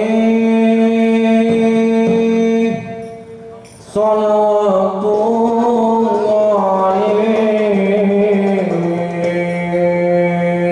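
A man's solo voice singing sholawat through a microphone, holding long notes with ornamented turns. It drops away for a breath about three seconds in, then comes back with wavering, gliding notes.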